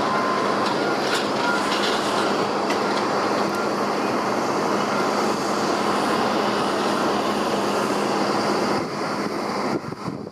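Jet airliner engines at high power: a loud, steady rush of noise that weakens near the end and then cuts off suddenly.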